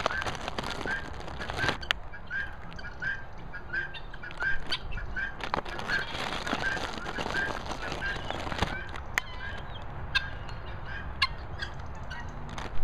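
A flock of helmeted guinea fowl and peahens calling: a short note repeated about three times a second, with scattered clicks and a sharp knock near the end.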